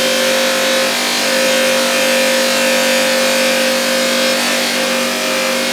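Electric buffing wheel running steadily while a 5/8 stainless steel bar, sanded to 600 grit and dressed with wax compound, is polished against it. It makes a steady hum with a hiss over it.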